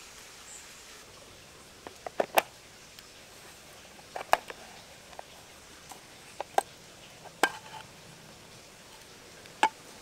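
Steady soft hiss of rain, with sharp clicks and taps over it: a quick run of four about two seconds in, then single ones every second or two, a couple ringing briefly.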